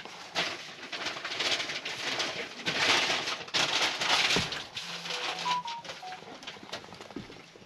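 German shepherd puppy chewing and mouthing a toy among blankets, with irregular rustling of fabric that is loudest in the middle and a couple of faint short squeaks about five seconds in.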